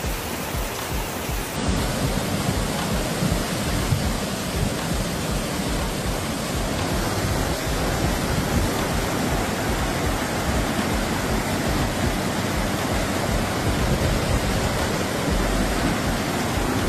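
Muddy floodwater rushing in heavy rain: a steady, unbroken wash of water noise.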